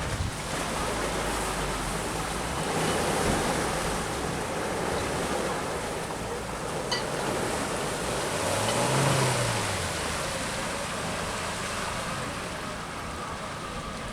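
An off-road 4x4's engine running under a steady rush of wind and ground noise. About nine seconds in, its revs rise and then fall back.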